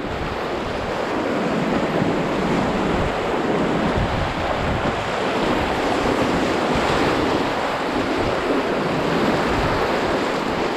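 Whitewater rushing and splashing around an open canoe running a spring-flood river rapid: a steady, dense rushing of turbulent water.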